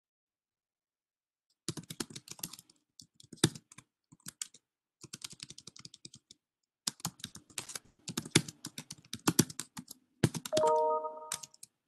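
Typing on a computer keyboard in quick bursts of key clicks with short pauses between them, starting a couple of seconds in. Near the end a brief steady tone of several pitches sounds over the typing.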